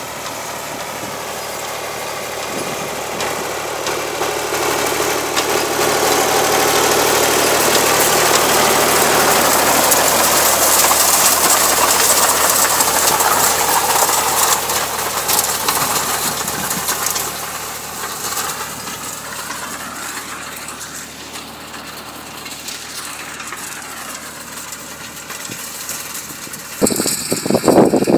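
Ford 4000 tractor engine running steadily as it pulls a rotary hay rake, getting louder as the tractor passes close and then fading as it moves off. A few loud rough bursts come near the end.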